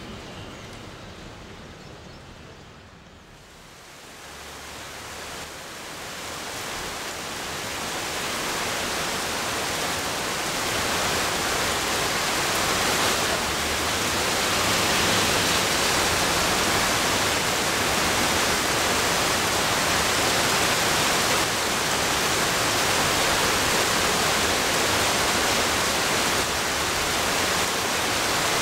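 Heavy rain pouring down as a steady, even hiss. It grows louder over the first ten seconds or so and then holds as a loud downpour.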